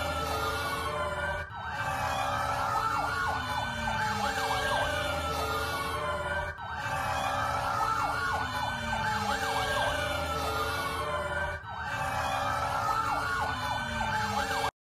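Emergency vehicle sirens wailing, several at once, each slowly rising and falling in pitch over about five seconds. The sound dips briefly three times and cuts off abruptly just before the end.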